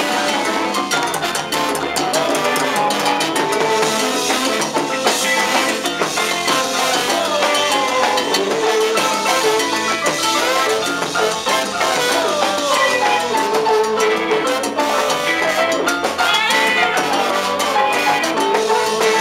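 Live salsa band playing, with drums and percussion under a singer on a microphone.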